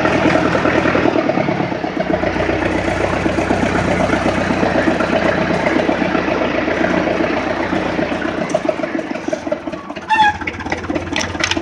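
Rakovica 60 tractor's diesel engine running steadily while the tractor is driven, then easing down toward idle near the end. A couple of sharp clicks with brief squeaks come about ten seconds in.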